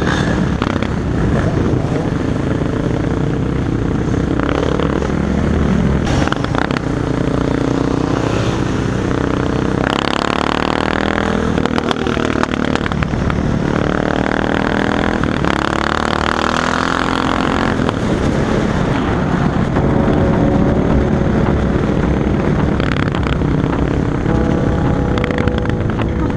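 Motorcycle engines running on the move: the riding bike's engine under way with a steady rush of wind noise, its pitch rising and falling as it revs up and eases off a few times around the middle.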